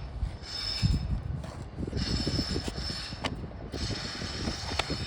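An asphalt roof shingle being slid in under the overlying shingle row, scraping and rubbing against the shingles, with a few knocks as it is handled.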